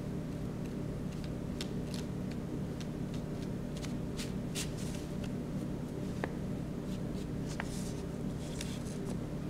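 Paintbrush strokes on paper: short, soft swishes and light ticks at irregular intervals, over a steady low hum.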